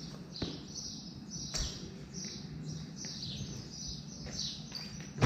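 Small birds chirping: many short, high chirps in quick succession, with a couple of faint knocks in the first two seconds.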